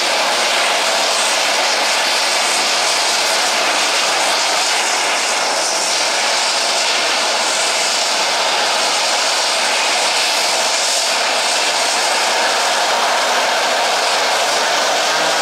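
Turboprop engines of a small twin-engine passenger plane running steadily as it taxis and turns to line up for takeoff, a loud even rushing drone.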